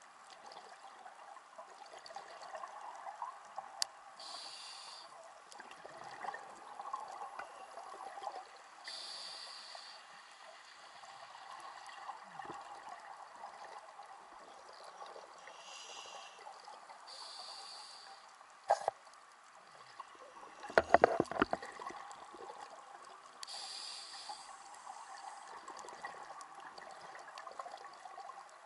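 Scuba regulator breathing heard underwater through a camera housing: a hissing inhale every five to seven seconds over a steady crackle of bubbles, with a louder rumbling rush of bubbles about two-thirds of the way through.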